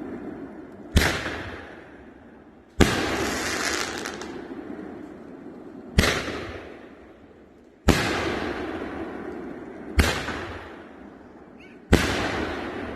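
Consumer 500-gram firework cake of 2-inch nishiki willow shells firing six shots about every two seconds, each a sharp bang followed by a hiss that fades away before the next.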